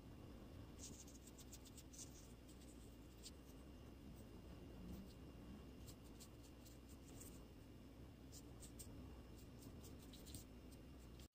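Faint scratching and dabbing of an ink-loaded bamboo brush on rice paper, in short clusters of soft ticks, over a steady low hum.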